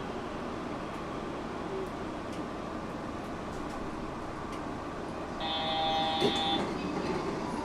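Steady running noise inside a Yurikamome rubber-tyred automated guideway train as it pulls into a station. About two-thirds of the way through, an electronic chime holds for about a second, with a single thump in the middle of it.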